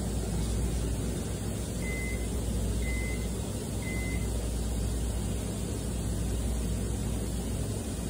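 Steady low rumble of background noise, with three short, identical high beeps about a second apart a couple of seconds in.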